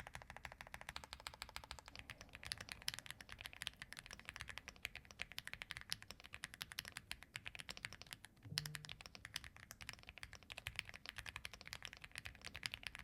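Aula F99 mechanical keyboard with pre-lubed Graywood V3 linear switches typed on quickly, a fast steady run of creamy-sounding keystrokes with a brief pause about eight seconds in.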